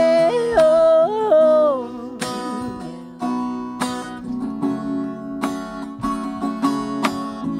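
A woman's voice holds the last sung note with vibrato, sliding down to end about two seconds in. After it, a solo guitar strums chords on its own, a short instrumental passage between sung lines, played on a black electric guitar.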